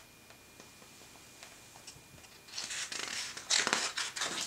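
Near silence, then about halfway in, a large page of a picture book is turned: a rustling, sliding swish of paper with a few crisp crackles.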